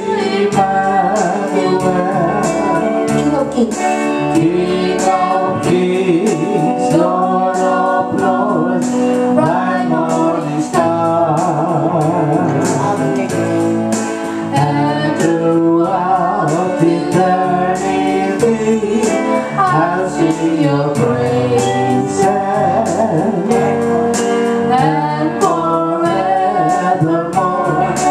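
A worship song performed live: voices singing over a strummed acoustic guitar.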